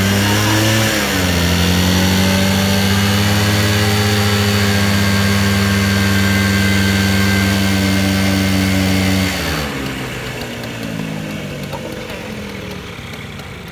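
Bajaj Chetak scooters' two-stroke engines revving hard. The revs climb over the first second, are held steady and high for about eight seconds, then drop back and fade.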